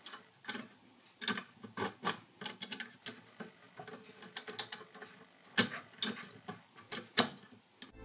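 Small brass model steam engine turned over slowly by hand at the flywheel, its crank, rods and valve gear giving irregular light clicks and ticks, a few of them louder.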